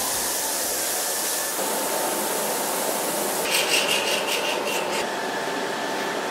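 Paint spray gun hissing steadily as it sprays paint. A faint steady tone comes in about a second and a half in, and the hiss pulses rapidly for a second or so midway.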